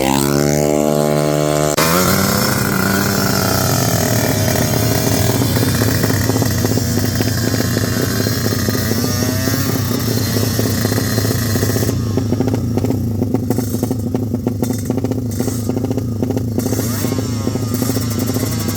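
Racing motorcycle engine falling sharply in pitch as a bike passes in the first two seconds, then motorcycle engines running steadily with a rough, crackly note and a few brief revs.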